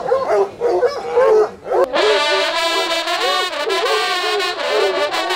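A pack of hunting hounds baying in wavering cries, then an abrupt cut about two seconds in to a group of large coiled hunting horns playing together in steady, sustained chords.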